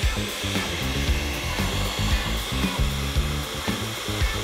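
Electric food chopper running steadily, mincing ground meat with bulgur, onion and garlic. Background music plays underneath.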